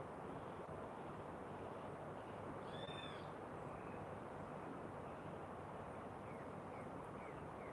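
Steady storm noise, an even rushing hiss. About three seconds in a bird gives one short arched call, and a few short faint chirps follow near the end.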